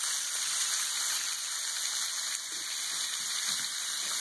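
Bacon sizzling in a frying pan: a steady hiss of fat frying.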